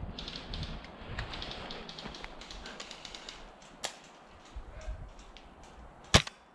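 Rustling of clothing and gear among dry heather and brush, thinning out to near stillness, with a light click about four seconds in. Near the end comes a single sharp crack, the shot of an airsoft sniper rifle being fired.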